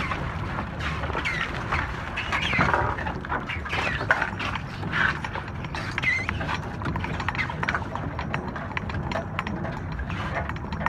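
Squid-jigging machine turning its reels and hauling in line, with rapid irregular clicking and knocking over a steady low hum.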